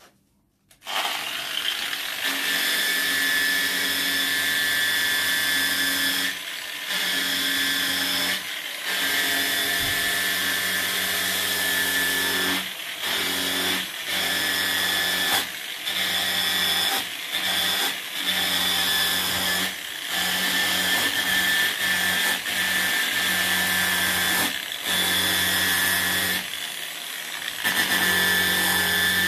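Angle grinder with a wire cup brush switched on about a second in, then running steadily as it scrubs along a pine board, its level dipping briefly every second or two. The brush is tearing out the soft grain so that the hard grain stands up, giving new wood an aged texture.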